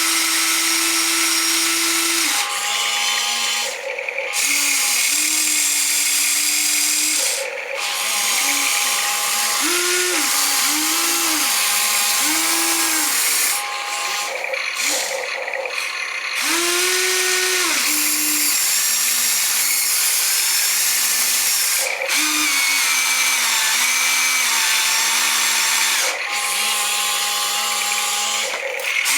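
Small electric motors of a model excavator whining in short stop-start bursts, the pitch rising and falling with each movement, with gear noise as it works the sand.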